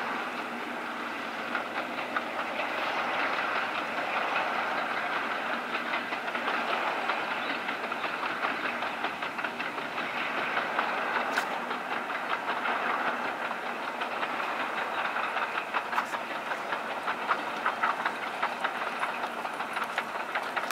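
Class 47 diesel locomotive and its coaches passing: a steady running rumble with the clickety-clack of wheels over rail joints, the clicks growing more frequent and distinct over the last few seconds as the coaches roll by.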